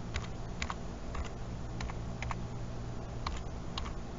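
Computer keyboard arrow keys pressed one at a time, giving about a dozen short clicks at uneven spacing, often in close pairs, as a layer is nudged into place. A steady low hum runs underneath.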